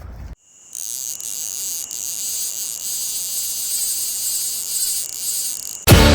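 Insects trilling steadily in a high, continuous drone, starting just under a second in after a short silence. Music cuts in near the end.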